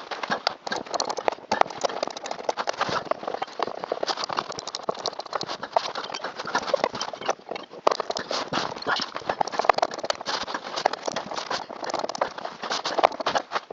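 A steady run of irregular clicks, knocks and rattles from hands and tools working hard plastic and metal parts while a car's blower motor is mounted back up under the dashboard.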